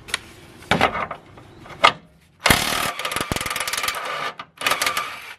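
Milwaukee cordless 3/8-inch electric ratchet running in two bursts, a long one of about two seconds and a shorter one near the end, each a rapid clicking over a steady motor whine, as it spins a motor mount bolt. A few short metal knocks come before it.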